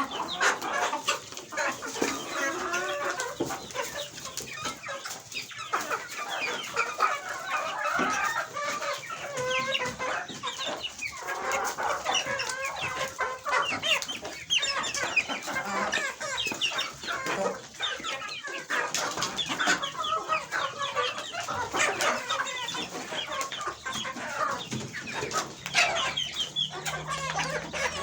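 A flock of chickens clucking and calling together continuously, with many short sharp clicks mixed in.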